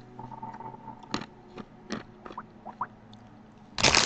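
A few faint clicks and small squeaky sounds, then, near the end, a sudden loud crinkling rustle of a Cheetos snack bag being handled as a cat noses at it.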